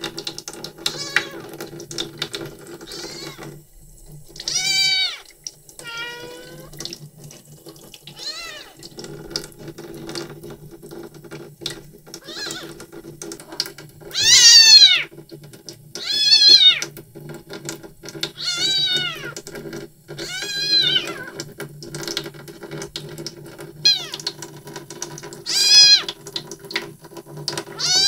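A three-week-old kitten meowing over and over, high-pitched rising-and-falling cries about every one to two seconds, some loud, as she is held and stimulated to pass stool; she cries while pooping.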